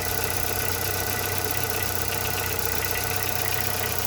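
Chevrolet Corsa engine idling with a rapid, steady tec-tec-tec ticking that occurs only at idle. Mechanics have put it down to piston skirt slap, the piston pin or a hydraulic lifter, but the cause is not yet confirmed.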